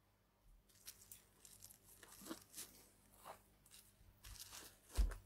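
Metal spoon scraping and tapping in a plastic yogurt tub, with faint eating sounds. A dull thump comes near the end.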